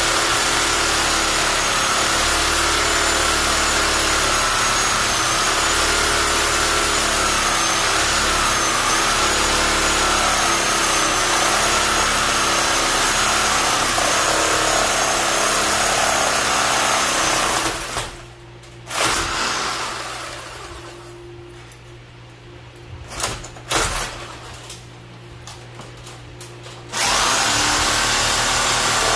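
Electric power saw cutting through a cast iron drain pipe, its motor running steadily under load with a wavering whine. It stops a little past halfway, leaving several seconds of quieter handling noise with a few short knocks, then starts cutting again near the end.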